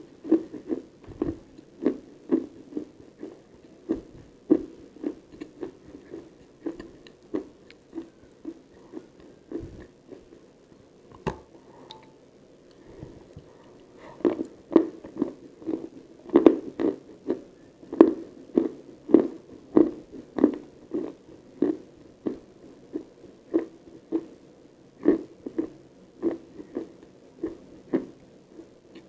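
Close-miked chewing of chalk, a run of short crunching chews about two a second. The chews grow fainter in the middle and stronger again in the second half.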